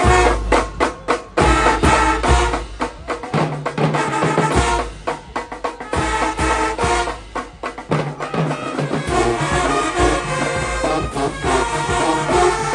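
Marching band playing: brass with a drumline, heavy bass drum hits and sharp repeated strikes at the start, then a steady groove.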